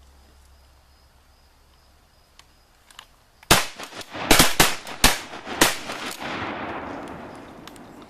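A volley of shotgun fire from several hunters: about six shots in two seconds, starting about three and a half seconds in. The last shot rings out and fades away over the next two seconds.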